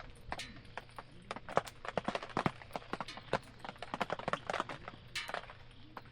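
Campfire crackling and popping: irregular sharp cracks, several a second, over a faint steady hiss.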